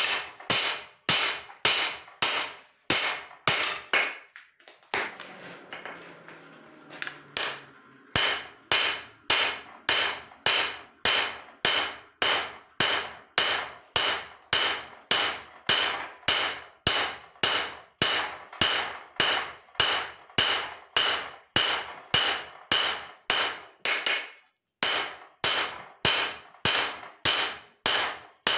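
Hand hammer striking hot leaf-spring steel on an anvil in a steady rhythm, about two blows a second, each ringing briefly. The hammering pauses for a few seconds near the start, then resumes, with a short break near the end.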